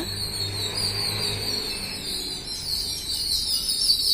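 A flock of house sparrows chirping without a break, a dense high chatter that grows louder after about two and a half seconds, over a low steady hum.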